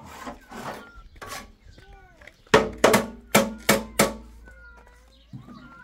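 Five sharp knocks in quick succession, about three a second, a little before halfway through, with short thin gliding calls before and after them.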